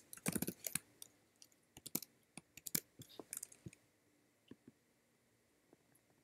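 Typing and clicking on a computer keyboard and mouse: a quick run of keystrokes in the first two seconds, scattered clicks until about four seconds in, then only a few faint taps.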